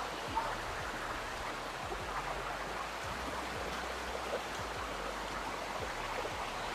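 Steady rushing of water from the Nặm Tạu waterfall and its stream.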